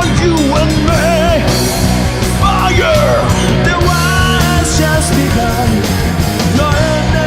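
Rock band playing live: distorted electric guitars, bass and drums with cymbal hits, and a wavering melodic lead line over the top.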